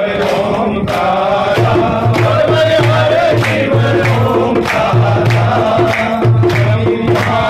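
Hindu devotional singing in a chant-like style, over music with a steady pulsing beat.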